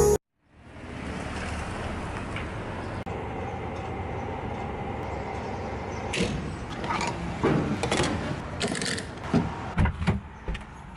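Steady rushing noise of a car, with a run of knocks and clicks in the second half, like a door and things being handled.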